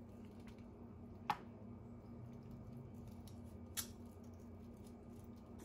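Metal kitchen tongs clicking twice, about a second in and again near four seconds, as they lift and lay pickled onions and carrots over fried fish in a glass dish. A faint steady low hum underneath.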